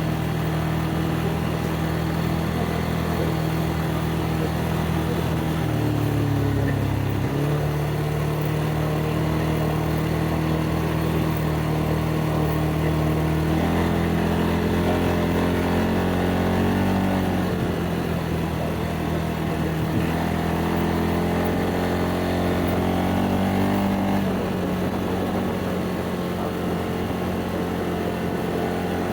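ATV engine running while riding, its pitch dipping briefly about six seconds in, climbing about fourteen seconds in, and easing back down near the end.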